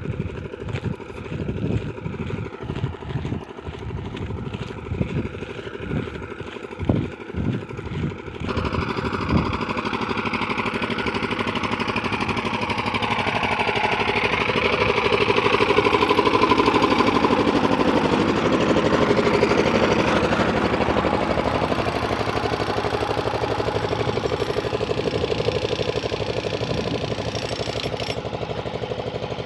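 Irregular low thumps on the microphone at first. About eight seconds in, the steady running of a work vehicle's engine takes over, getting louder for several seconds, then slowly easing off.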